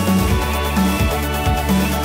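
Background music: an electronic track with a steady kick-drum beat, about two beats a second, over sustained bass and synth notes.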